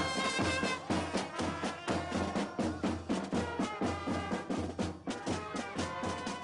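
Music with a steady beat and held notes.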